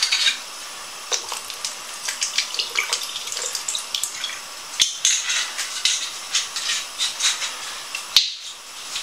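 Vinegar poured from a small bottle into a large stainless-steel stockpot: a thin stream splashing and dripping, with one sharp click about five seconds in.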